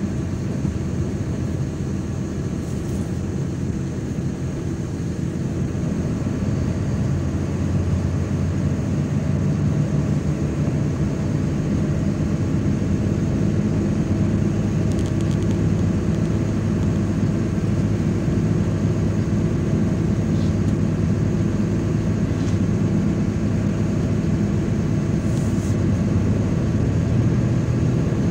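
MAZ-103 city bus heard from inside the passenger cabin while driving: a steady low engine and road rumble that grows gradually louder over the stretch.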